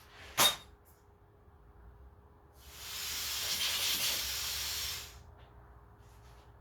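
A compressed-air blow gun on an air hose: a quick sharp puff about half a second in, then a steady hiss of air lasting about two and a half seconds, blowing dirt out of a toolbox.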